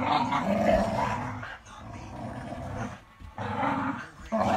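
Dogs growling in play while tugging on a rope toy, in long rough bouts with a short break midway and another near the end.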